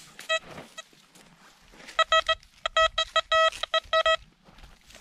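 XP Deus metal detector beeping over a buried target that reads 93 and turns out to be a bottle cap: a few single beeps, then quick runs of repeated beeps from about two seconds in as the coil sweeps over it.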